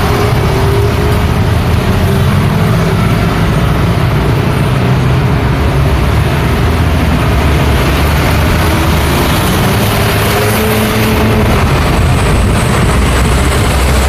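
Busy road traffic: cars and trucks driving past without a break, a steady low rumble with engine notes rising and falling as vehicles pass.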